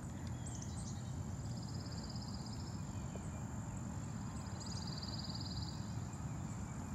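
Quiet outdoor ambience at a pond with a low, steady rumble. A small animal gives a short, high, rapidly pulsed trill twice, each about a second long.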